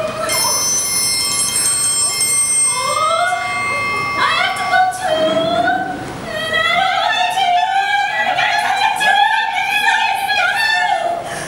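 Women singing in an exaggerated, mock-operatic style, with long wavering held notes in the second half. A high steady tone is held over the first few seconds.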